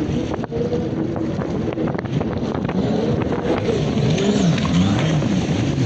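Jet ski engines running out on the water, their pitch rising and falling as the riders throttle up and back. Wind buffets the microphone.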